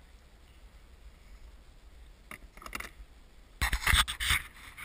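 A few light clicks about two and a half seconds in, then loud scraping and rubbing close to the microphone near the end as fishing gear is handled in the boat.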